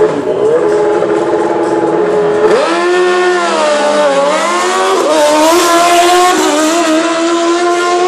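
Two sport motorcycle engines revving hard on a drag strip start line, the pitch held steady, then dipping and climbing again from about a third of the way in as the bikes go for the launch.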